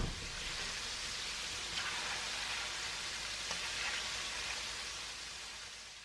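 Food deep-frying in hot oil: a steady bubbling sizzle that fades out near the end.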